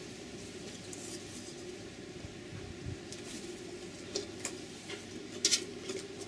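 Electric wok steamer running with a steady low noise of water steaming underneath, with a few light clicks and taps, the sharpest about five and a half seconds in.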